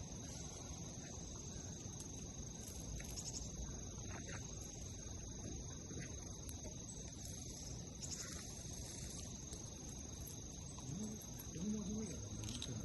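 Insects chirring steadily at a high pitch, with a few faint short low sounds near the end.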